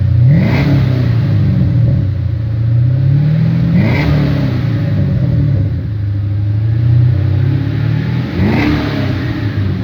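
Chevrolet Camaro SS V8 engine idling with a deep rumble, revved three times. Each blip climbs quickly and then sinks back to idle.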